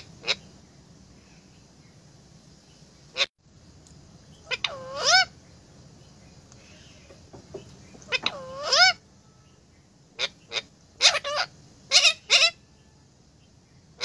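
Young Alexandrine parakeet squawking: short sharp calls, two longer harsh calls with a wavering pitch in the middle, and a quick run of squawks near the end.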